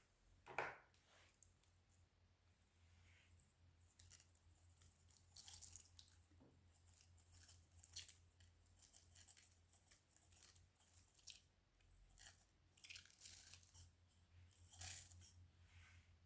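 Slime being handled and pressed, giving irregular sticky crackling and popping sounds, with a single soft knock near the start.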